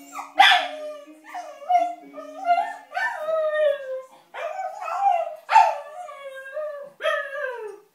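Cocker spaniel puppy howling in a string of about six drawn-out calls, most falling in pitch at the end, in reaction to the tune of a baby's toy piano. Faint steady notes from the toy piano sound under the first few seconds.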